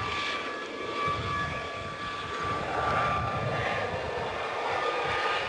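Helicopter flying close by: a steady turbine whine over continuous rotor and engine noise.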